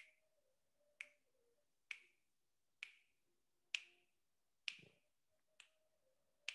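Short, sharp clicks at an even pace of about one a second, marking time through a held breath, with near silence between them.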